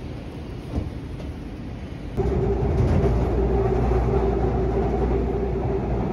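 Low street rumble, then about two seconds in it cuts to the inside of a Seoul subway Line 2 train running across a bridge: a louder steady rumble with a steady mid-pitched whine.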